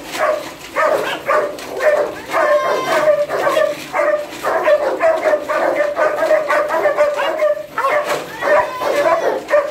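Kennelled dogs barking, yipping and whining in a near-continuous string of short high calls, several a second and overlapping: excited dogs greeting the handler after a separation.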